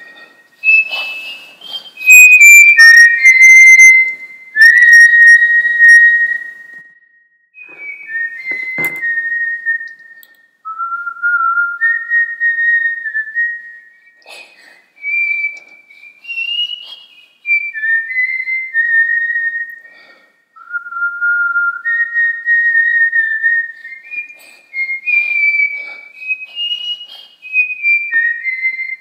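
A person whistling a tune: clear single notes stepping up and down in short phrases with brief pauses between them, loudest in the first few seconds. A single sharp click about nine seconds in.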